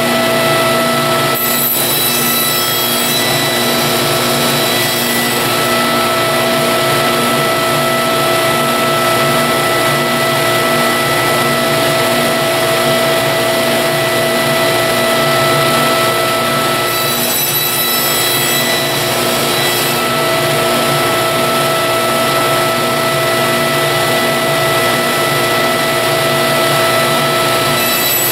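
Table saw running steadily, its blade cutting spacers off a hardwood dowel pushed through on a small-parts sled. The sound changes twice, about a second and a half in and again around seventeen seconds, as the blade cuts through the dowel.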